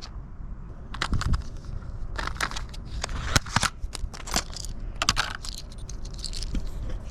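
Small hard parts being handled: irregular clicks, clinks and short scrapes.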